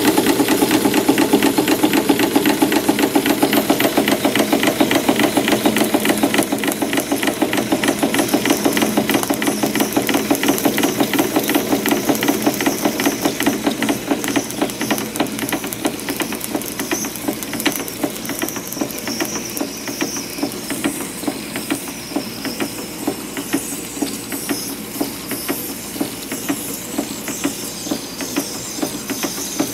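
Märklin 4159 live steam engine running under steam: a rapid, even clatter of strokes from its cylinders and motion work, with steam hissing. It grows gradually quieter from about six seconds in.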